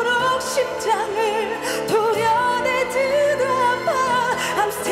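A woman singing long, wavering notes with vibrato over a pop ballad accompaniment.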